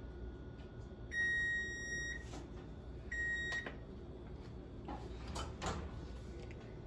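Kitchen range's electronic timer beeping twice at its end: a high steady tone, the first beep about a second long and the second shorter, signalling the crust's bake time is up. A few clicks and a knock follow near the end as the oven door is opened.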